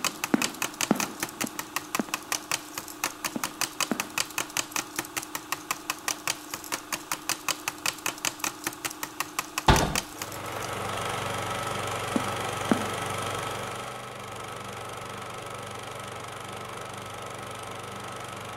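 A rapid, even mechanical clatter of about five or six ticks a second over a low steady hum, ending in one loud thud about ten seconds in, after which a steady machine hum carries on.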